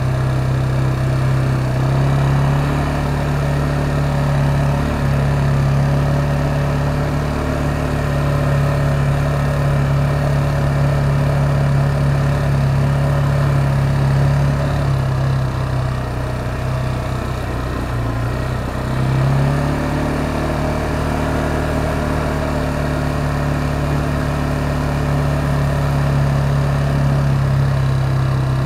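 K-Lion Commander 200 ATV engine running steadily under way on a dirt track. It eases off briefly about two-thirds of the way through, then picks up again.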